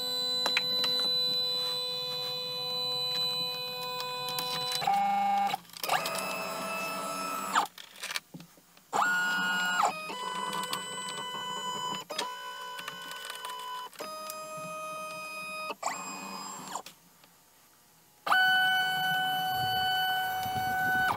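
Stepper motors of a Shapeoko Pro XXL CNC router whining as the gantry makes a series of jog moves. Each move lasts a second or two and is one steady whine, its pitch jumping to a new one at each move, with short pauses and one silent stretch near the end.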